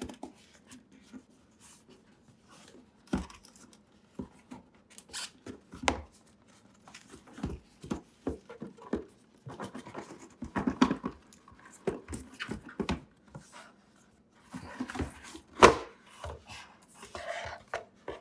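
Hands handling cardboard boxes: scattered taps, scrapes and rustling as a cardboard box is opened, a smaller box is lifted out and its lid is pulled off, with one sharper knock late on.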